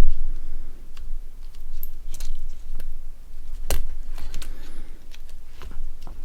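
Small parts of a Nokia 6680 phone being handled and set down on a work surface: scattered light clicks and taps, with a dull thump at the start and a sharper click just under four seconds in.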